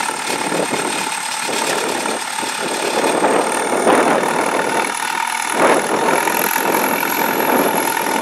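Diesel engine of a JCB 3CX backhoe loader running steadily with a rattle, its high whine rising in pitch partway through, with two sharp knocks in the middle.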